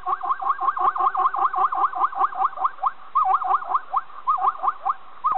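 Zebra calling: a long run of quick, yelping notes that sweep up in pitch, about five a second, with a short break about three seconds in.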